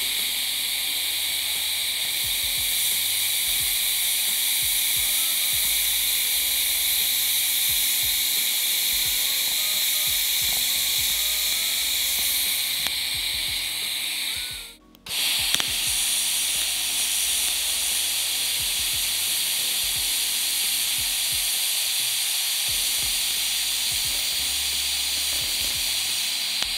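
TIG welding arc from an EWM Picotig 200 AC/DC Puls, a steady hiss with a high buzz. It burns for about fifteen seconds, breaks off briefly, then strikes again and burns until just before the end, while filler is added to bridge an air gap between the sheets.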